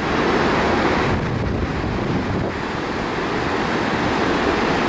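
Wind blowing across the microphone over the steady rush of a cruise ship's wake churning behind the stern.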